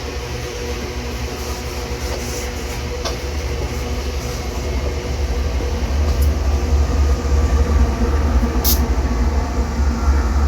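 Loaded iron-ore freight train rolling past, a steady low rumble of wheels on rail that grows louder past the middle. A short, sharp high sound cuts through late on.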